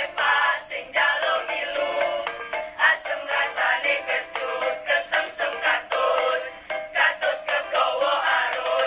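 A school choir singing an ethnic Indonesian folk choral arrangement, the voices moving in short, rhythmic phrases.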